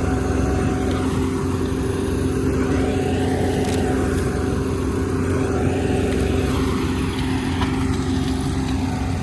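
Kubota ER470 combine harvester running steadily, its diesel engine and machinery giving an even hum with a few fixed tones.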